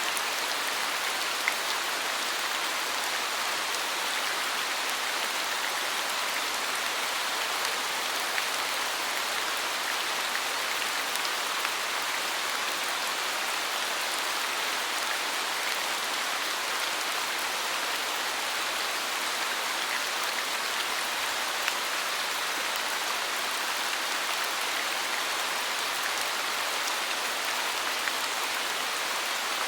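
Steady rain falling, an even hiss with now and then a single louder drop tick.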